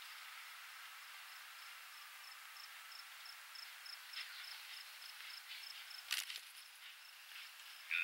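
Faint insect chirping, a short high tick repeating about three times a second over a steady outdoor hiss, with a sharp knock about six seconds in.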